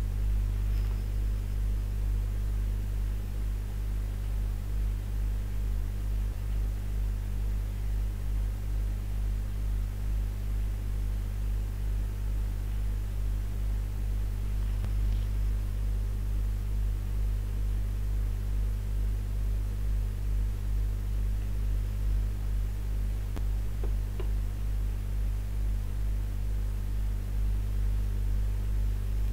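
Steady electrical mains hum, a low buzz made of fixed tones with a faint hiss over it, pulsing slightly in loudness.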